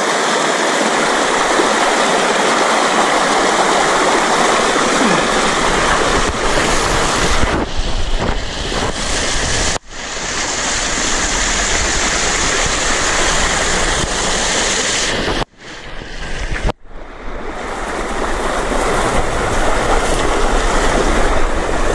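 Shallow river water rushing and splashing close by as people wade through it, with a low rumble underneath. The sound cuts out sharply twice, briefly about ten seconds in and for about a second a little later.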